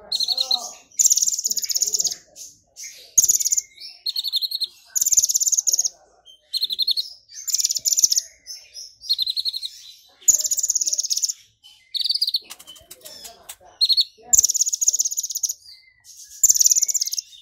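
Purple-throated sunbird singing: bursts of high-pitched, rapid twittering trills, each under a second long, about every one to two seconds.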